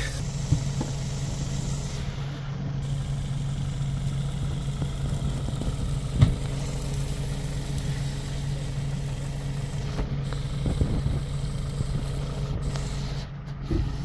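An engine idling steadily, a low even hum, with a few light knocks over it, the sharpest about six seconds in.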